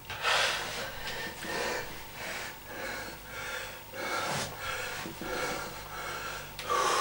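A man breathing hard after a set of push-ups: quick, heavy breaths, one about every half second to second, loudest at the start and again near the end.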